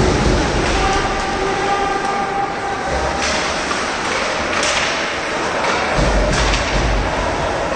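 Ice hockey play: a steady scrape and hiss of skates on ice, broken by a few sharp knocks of sticks and puck, with low thumps twice, about three and six seconds in.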